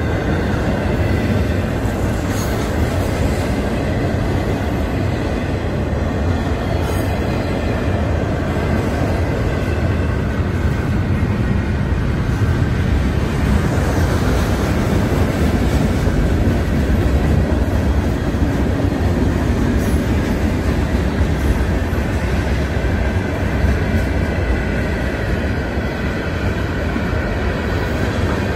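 Freight train of container and tank cars rolling steadily past at a grade crossing: a continuous loud rumble and clatter of wheels on rail.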